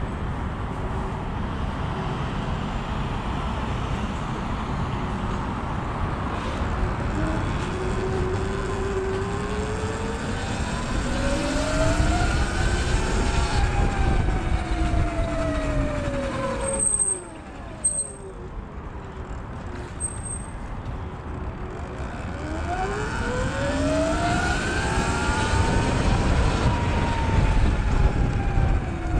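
Sur Ron electric dirt bike riding in traffic: wind and tyre rumble with the motor's whine climbing as the bike speeds up, then falling as it slows. A little past halfway the bike stops and the rumble drops away; a few seconds later it pulls off again, the whine rising once more.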